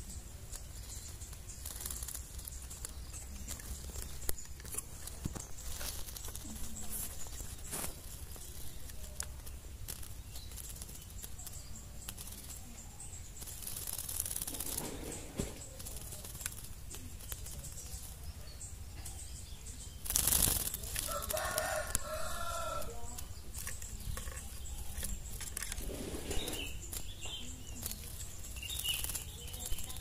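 A wet long-tailed shrike fluttering and shaking its feathers after a bath, with scattered light ticks and a loud rustling burst about two-thirds of the way in. Right after the burst, a rooster crows in the background.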